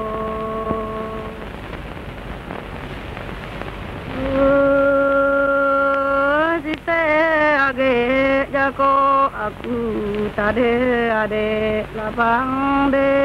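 Soundtrack music. A single melodic line enters about four seconds in, holding notes that waver and slide between pitches. Before it there is only a faint hiss and a soft steady tone.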